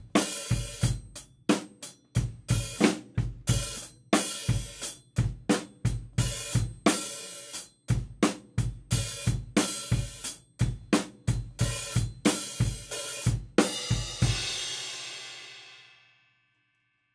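Acoustic drum kit grooves on bass drum, snare and hi-hat, with hi-hat barks: the hi-hats are briefly opened with the left foot for a short sizzling 'psst' and then closed again. About fourteen seconds in it ends on a cymbal hit that rings out and dies away over about two seconds.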